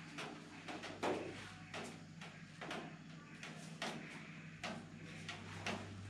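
Footsteps on concrete, about two a second, crossing a paved courtyard and then going up concrete stairs. A steady low hum runs underneath and gets louder near the end.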